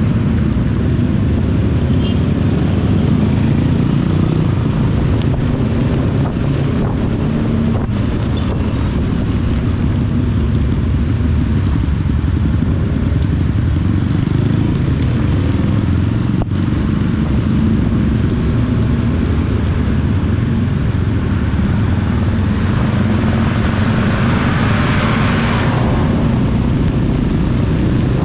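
Honda CB250 motorcycle engine running steadily while riding, under a constant hiss of wind and rain. About 23 seconds in, a louder wash of hiss swells for a few seconds and then fades.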